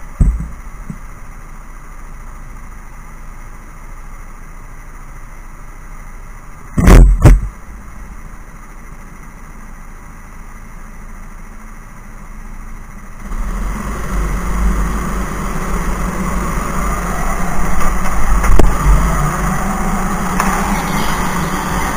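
Rental go-karts at a standing race start, heard from onboard one kart in an indoor hall: a low steady hum while they wait on the grid, two loud sharp knocks close together about seven seconds in, then the karts pull away about thirteen seconds in and the motor sound grows louder and rises in pitch as they accelerate.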